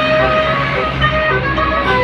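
Bus 'telolet' multi-tone air horn playing a tune of held, changing notes over the low hum of the bus engine.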